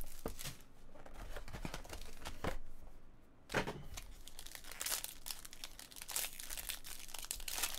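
Plastic shrink-wrap and a silver foil card wrapper crinkling and tearing as they are handled and peeled open by hand, in irregular rustles with a sharper tear about three and a half seconds in.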